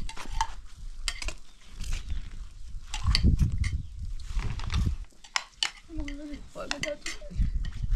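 Scattered clinks and knocks of hard objects being handled, irregular and sharp, with a few duller thuds about three seconds in.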